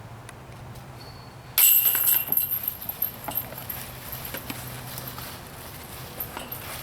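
A disc hitting the chains of a disc golf basket about a second and a half in: a sudden metallic clash and chain jangle that rings and fades over about a second, with a few lighter rattles after.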